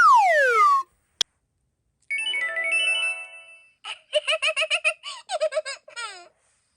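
Electronic, cartoon-like sound effects: a falling whistle glide, a single click, a twinkling chime run, then a quick string of short high-pitched chirpy giggles.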